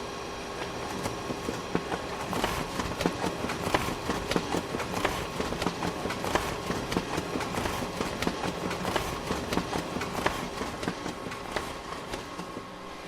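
Photocopier running: a steady machine hum with a dense, uneven clatter of clicks and knocks that builds about a second in and thins out near the end.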